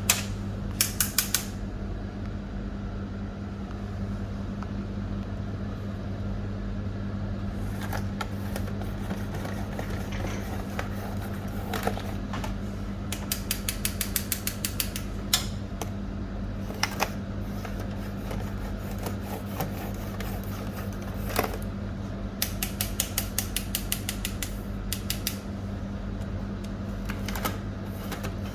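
Steady low hum with several bursts of rapid mechanical clicking, a quick run of sharp ticks each lasting a second or two.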